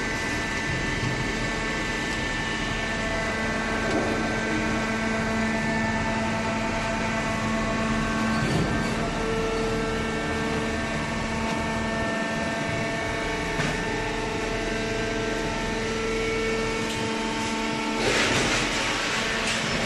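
Hydraulic cardboard baler running steadily: a constant hum from its motor and pump with several steady whining tones over it, and a louder hissing rush near the end.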